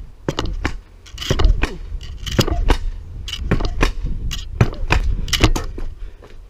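Vurtego air-spring pogo stick bouncing on asphalt: a quick, uneven run of sharp clacks and thuds as it lands, over a low rumble, dying down near the end.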